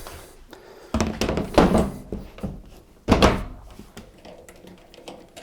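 Top panel of a Zanussi washing machine being set down and pushed into place on the cabinet: three heavy thuds, then faint small clicks.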